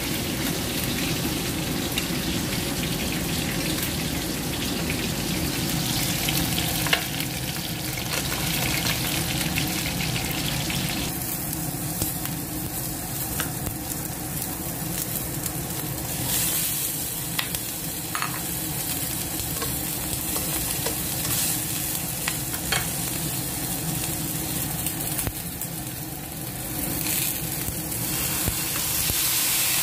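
Steady sizzle of food frying in hot oil in a frying pan, with sliced onion and garlic being sautéed. A few sharp clicks break through now and then.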